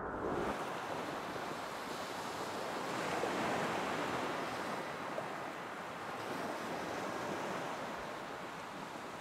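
Small sea waves breaking and washing over a shallow rocky shore: a steady surf hiss that swells about three to four seconds in, then slowly eases.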